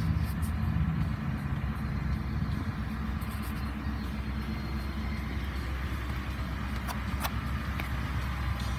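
Pickup truck engine idling: a steady low hum, with a few faint clicks.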